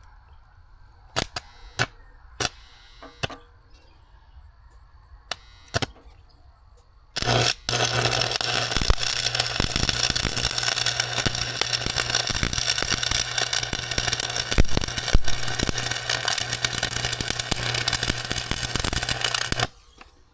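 A few sharp clicks and knocks, then a stick-welding arc on 7018 rods at about 180 amps crackling steadily for about twelve seconds. The arc breaks off briefly just after it is struck, then carries on with a steady hum under the crackle.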